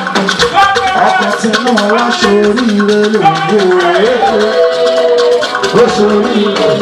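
Music with a fast, steady shaker rhythm under a sliding melody line.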